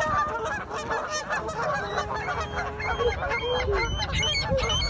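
A flock of birds calling over one another, with many short, overlapping calls throughout.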